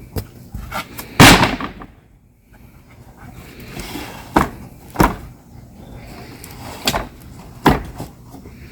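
Shovel work in dirt: a string of knocks and thuds as a hole is filled and tamped. The loudest is a heavy, scraping thud about a second in, followed by four sharper single knocks spread over the rest.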